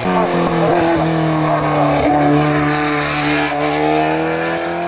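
Historic open-wheel single-seater race car's engine running hard up a wet hillclimb road. It comes in sharply at the start, dips a little in pitch, then holds steady, with a brief hiss about three seconds in.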